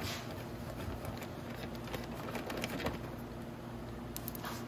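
Faint scattered clicks and ticks of a hex driver working the bolts out of a motorcycle's plastic side fairing, with a few sharper clicks near the start, about three seconds in and near the end. A steady low hum runs underneath.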